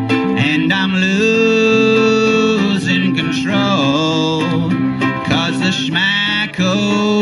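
Ukulele band playing live: several ukuleles strummed over an electric bass guitar, with a long held melody note about a second in.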